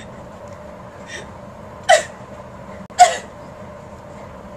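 A woman crying: two sharp, loud sobs about a second apart, after a fainter one.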